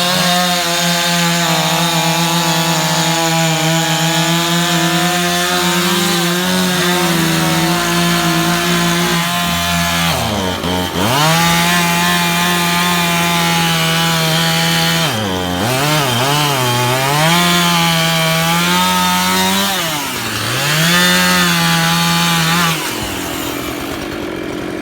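Husqvarna two-stroke chainsaw running at high revs while cutting storm-downed wood. Its engine pitch dips and climbs back three times in the middle, then the saw drops away near the end.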